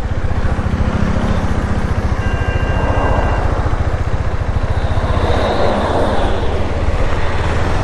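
Steady rumble and road noise of a moving vehicle on the road, with no change in pace.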